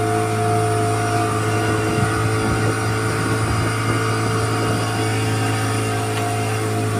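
Small outboard motor, its cowling marked 15, running steadily at cruising speed and driving an open boat across the sea.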